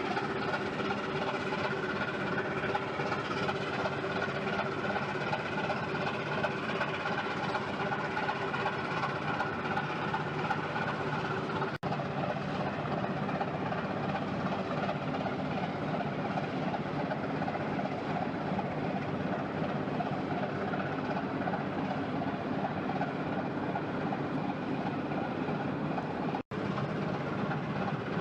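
Diesel engine of a river pushboat shoving a barge convoy, droning steadily and labouring hard. The sound cuts out for an instant twice.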